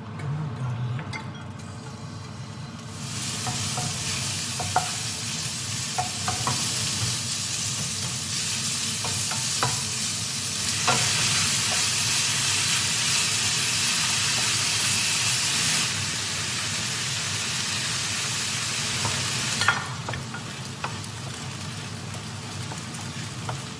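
Asparagus, tofu and onion sizzling in oil in a frying pan while a utensil stirs them, with scattered taps and scrapes of the utensil against the pan. The sizzle begins about three seconds in, is loudest in the middle and eases off near the end.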